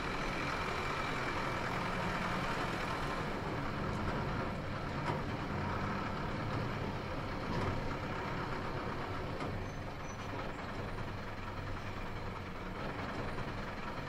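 Truck driving along: a steady engine drone with road noise.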